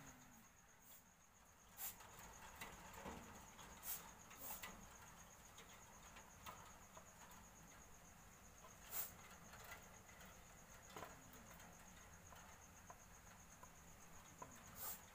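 Faint, steady cricket trill, a high, finely pulsing tone, with a few soft sharp clicks scattered through.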